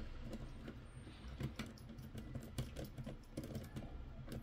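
Faint, irregular light clicks and taps of hands handling small plastic and metal parts and a screwdriver inside an opened mini PC's chassis.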